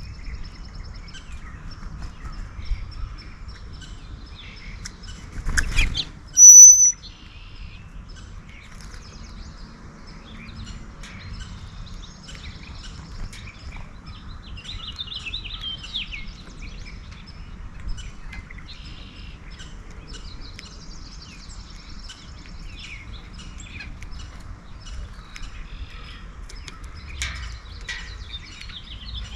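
Songbirds at a backyard feeder chirping and calling on and off. About six seconds in there is a knock, followed at once by a loud, short, high call close to the microphone.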